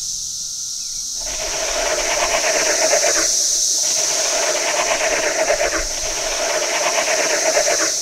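Cicadas buzzing: a steady high-pitched drone, joined about a second in by a louder, lower, rapidly pulsing buzz that breaks off briefly around three seconds and then resumes until near the end.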